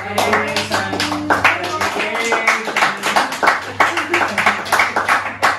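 A small group clapping hands in a steady rhythm, with music and voices over the claps.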